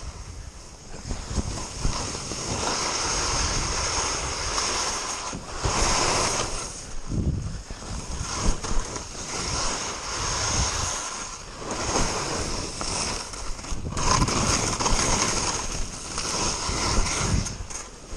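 Skis turning down a steep snow slope: the edges scrape and hiss on the snow, swelling and easing with each turn, over wind rumbling on the microphone.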